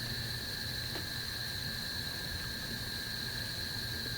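Crickets calling: a steady, continuous high-pitched trill, with a second, lower steady trill alongside it.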